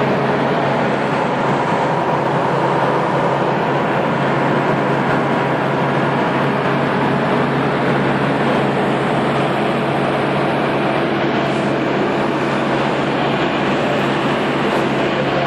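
Propeller engine of a Dyn'Aero MCR4 light aircraft running steadily in cruise, heard from inside the cabin as an even, unchanging hum with rushing air noise.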